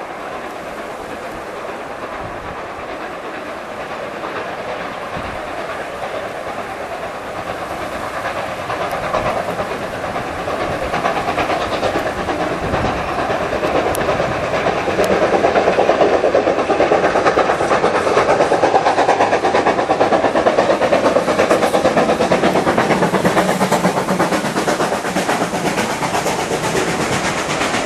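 A steam tank locomotive hauling a train of coaches approaches and runs past. It grows steadily louder over the first half and stays loud as the engine and coaches go by.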